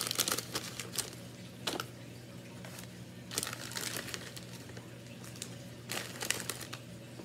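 Plastic candy packaging crinkling as it is handled, in several short bursts with pauses between.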